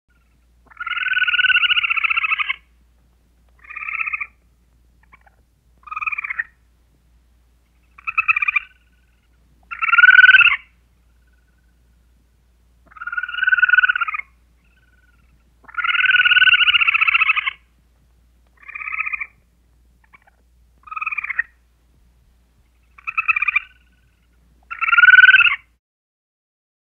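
A series of animal calls, each between about half a second and two seconds long, with silence between them. One long call followed by four shorter ones, and the same pattern repeats once.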